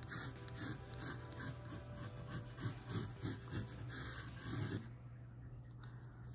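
Pencil scratching across textured Arches cold-press watercolor paper in quick, light sketching strokes; the scratching stops about five seconds in.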